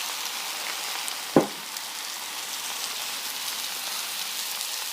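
Rice noodles and beef frying in a hot wok, a steady sizzling hiss, just after a splash of dark soy sauce. A single sharp knock sounds about a second and a half in.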